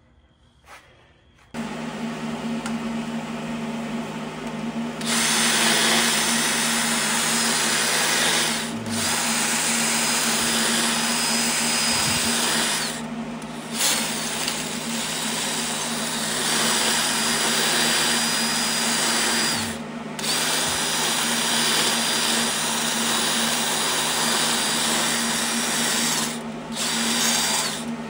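Cordless die grinder spinning up about one and a half seconds in and running steadily, its burr grinding the cast-iron intake and exhaust ports of a flathead V12 engine block. From about five seconds in the cutting noise is loud and even, breaking off briefly four times while the motor keeps running.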